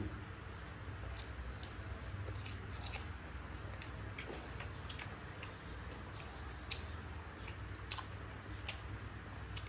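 Someone chewing and eating food, with small irregular clicks and ticks over a low steady hum.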